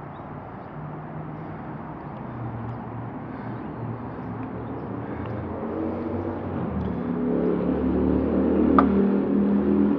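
An engine running and growing steadily louder from about six seconds in, with a sharp click near the end.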